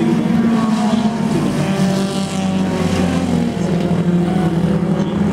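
Dirt Demon class dirt-track race cars racing past close by, several engines running together, loud and steady.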